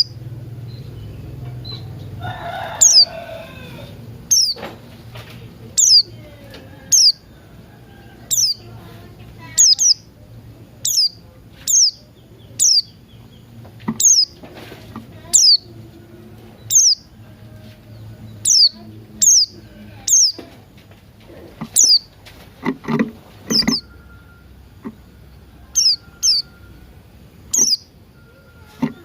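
Pleci buxtoni (white-eye) and cucak rante songbirds calling, used as a lure sound to set a caged pleci singing. A sharp, high, downward-slurred note repeats about once a second. Lower, rougher calls come in about two seconds in and again about three quarters of the way through.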